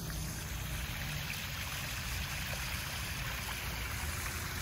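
Small stone waterfall splashing steadily into a backyard koi pond.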